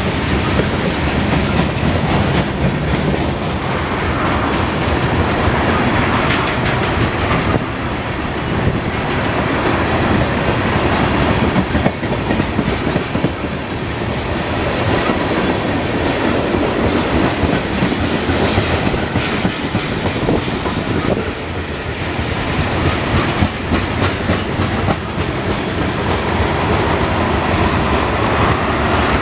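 Freight cars of a long CSX manifest train rolling past at close range: steady rumble of wheels on rail with rapid clicking as the wheels cross rail joints.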